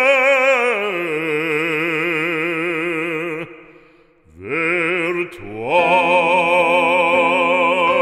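Background music: a solo voice singing long held notes with heavy vibrato, breaking off briefly about halfway through, then rising into another sustained note.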